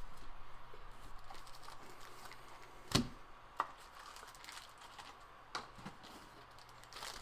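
Quiet handling of trading cards: a few light clicks and taps, the sharpest about three seconds in, with a couple of smaller ones after.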